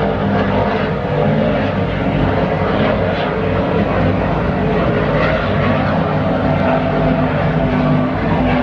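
Offshore racing powerboat engines droning steadily, several engine tones layered together.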